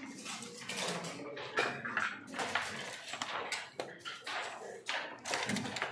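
Backgammon checkers and dice clattering on the board as the players move in quick turns: a fast, uneven run of sharp clicks and knocks.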